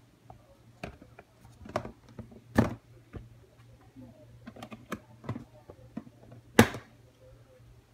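Handling noise: scattered sharp clicks and knocks at an uneven pace, with two louder knocks about two and a half and six and a half seconds in.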